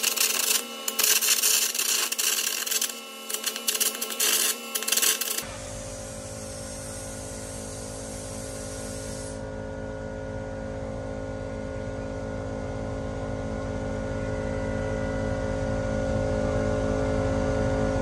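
Air carbon arc gouging on steel: a loud, harsh crackling arc that stops and starts in bursts for about five seconds, then ends. A steady mechanical hum with a low buzz remains and slowly grows louder.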